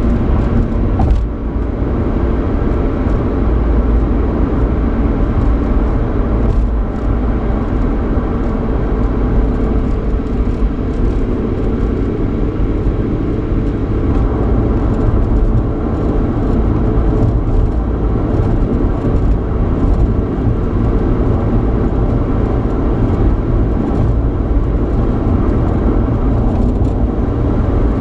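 Road noise and engine hum inside the cabin of a 3.8-litre V6 Ford Mustang driving steadily, with tyre and wind noise over a low drone.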